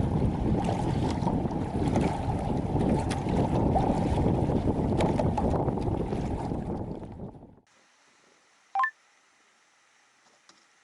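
Strong wind buffeting the microphone on a kayak at sea, with scattered sharp splashes and knocks. It fades out about seven seconds in to near silence, broken once by a short high chirp.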